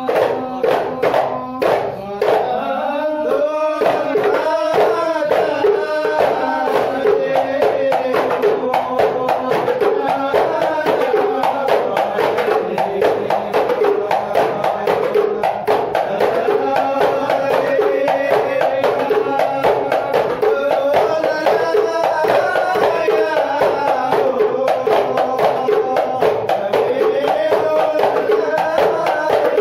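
Hadrah Ishari ensemble: hand-struck frame drums beating a fast, dense rhythm under men's voices chanting a sholawat.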